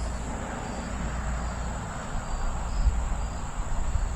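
Wind gusting on the microphone as a low, uneven rumble, with insects chirping: short high chirps repeating about twice a second over a thin, steady high buzz.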